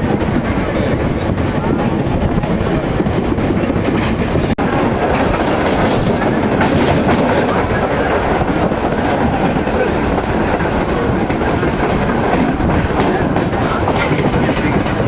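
Train running along the track at speed: a steady, loud rumble of wheels on rails with clickety-clack.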